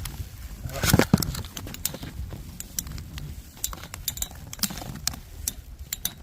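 Metal Beyblade spinning tops clashing in a plastic stadium: a run of sharp, irregular metallic clicks and clinks, with a louder scrape and clash about a second in. A steady low wind rumble runs underneath.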